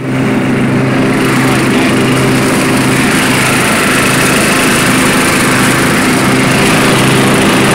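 1989 Murray rear-engine riding mower running steadily while bagging leaves, its engine and deck loud and even throughout.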